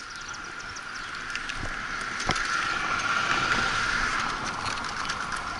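Bicycle riding over rough city asphalt, heard from a camera on the bike: steady tyre and wind noise that grows slightly louder, with scattered rattles and a sharp knock about two seconds in.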